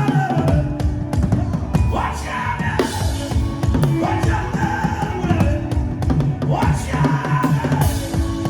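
Fast, dense drumming, many quick strokes a second without a break, with a melody line sliding in pitch above it.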